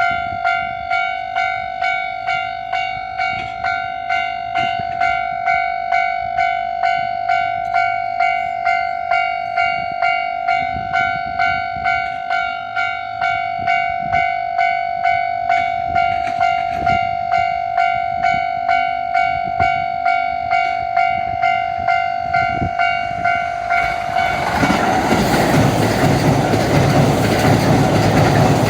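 Japanese level-crossing warning bell ringing in steady pulses about twice a second. About 24 seconds in, the Kintetsu 80000 series Hinotori electric limited express comes through the crossing, and its loud running and wheel noise rises over the bell.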